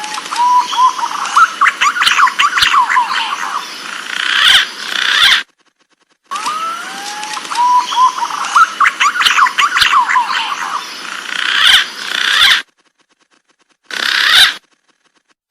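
Green pigeon (punai) calls from a bird-lure recording: rising whistled notes lead into a rapid warbling, whistling phrase. The same phrase plays twice with a silent gap between, then a short burst near the end, as a looped call.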